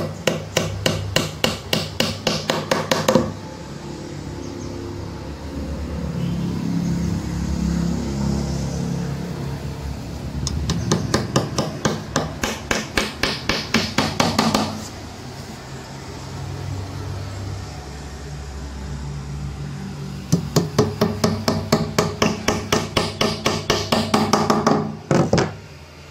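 Claw hammer driving small nails into an 8 mm marine plywood panel. The strikes come quickly, about four a second, in three runs with pauses between them.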